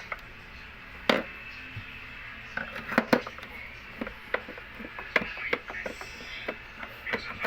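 Irregular clicks and clinks of a screwdriver and small screws on the plastic case of an APC UPS being taken apart, with the sharpest knocks about a second in and twice around three seconds in.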